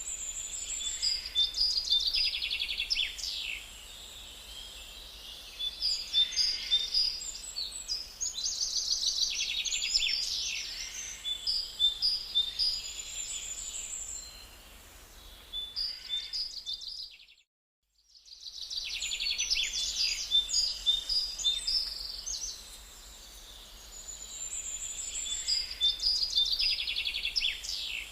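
Songbirds singing: dense chirps, trills and whistled phrases over a faint steady hiss. The song cuts out briefly about two-thirds of the way through, then a similar passage of song starts again, as at the loop point of a repeating recording.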